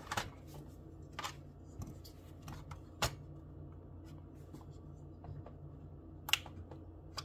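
Handling on a tabletop as a folding knife and a small weighing scale are moved about: a few scattered light clicks and taps with some rubbing, the sharpest about three seconds in and again a little past six seconds.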